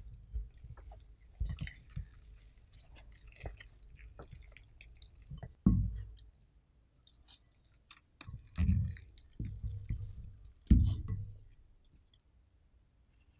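Silicone spatula scraping and squishing soft matcha butter-cookie dough in a glass bowl and packing it into a metal cookie-press barrel. Three dull thumps come from the middle on, the last the loudest.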